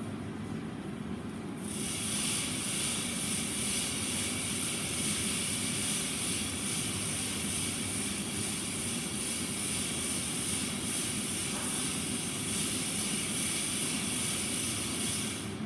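Steady machine rumble with a steady high hiss over it; the hiss comes in about two seconds in and cuts off near the end.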